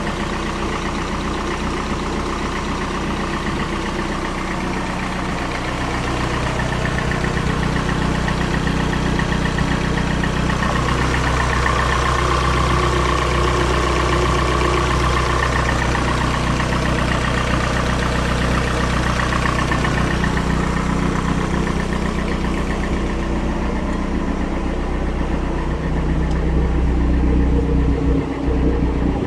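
Turbocharged Toyota 3S-GE four-cylinder engine idling steadily, with an unidentified strange noise that the owner is documenting; a faint wavering tone sits over the idle, strongest a little under halfway through.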